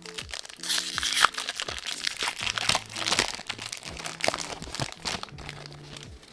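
Foil wrapper of a Pokémon card booster pack crinkling and tearing as it is opened by hand, a dense run of crackles that dies down near the end, with soft background music under it.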